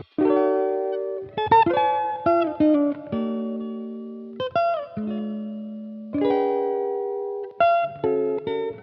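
Background music: plucked guitar notes and chords, each ringing and slowly fading.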